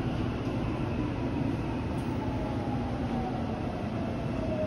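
Interior running noise of a Shinbundang Line subway train slowing as it pulls into a station: a steady low rumble with a faint whine falling in pitch.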